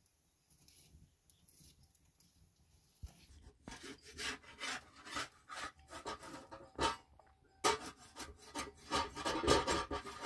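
A metal utensil scraping food around a metal cooking pan in repeated rasping strokes, starting about three and a half seconds in, with a short pause about seven seconds in.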